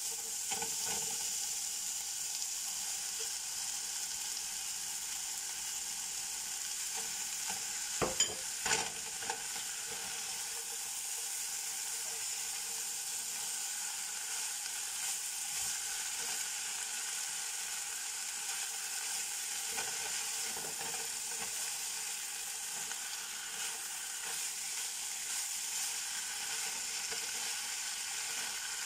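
Beef strips and sliced peppers, carrot and celery sizzling steadily in a hot Kobach fry pan while a spatula stirs and scrapes them. A few sharp knocks come about eight seconds in.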